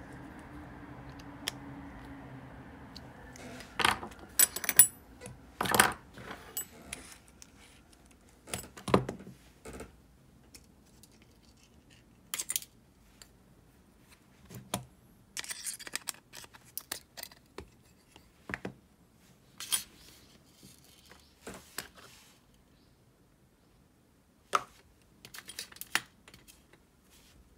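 A screwdriver and small metal parts of a Shimano Calcutta Conquest 400 baitcasting reel clicking and clinking during reassembly: scattered sharp clicks and short runs of light taps. A faint steady hum fades out about three seconds in.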